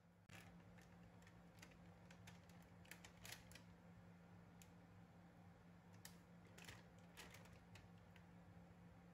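Near silence with a low steady hum, broken by faint scattered clicks and light taps.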